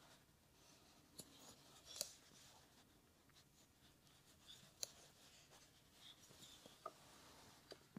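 Near silence, with faint rustling of yarn and a few soft clicks as a crochet hook works double crochet stitches, the clearest click about two seconds in.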